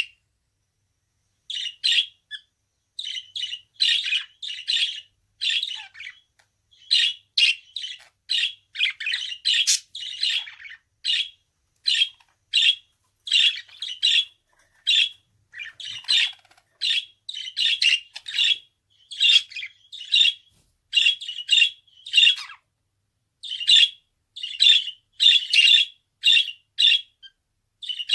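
Budgerigar chirping and squawking in a quick run of short, sharp calls, about two a second, after a pause of a second or so at the start.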